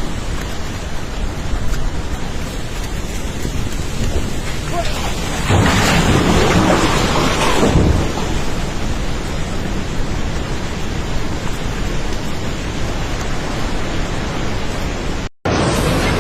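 Floodwater of a swollen river rushing past in a steady, heavy rumble, louder for a couple of seconds about six seconds in. The sound breaks off for a moment near the end.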